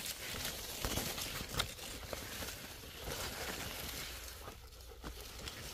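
Dry corn leaves and stalks rustling as someone pushes through a dried-out cornfield, with footsteps and a few sharp cracks about one and one and a half seconds in.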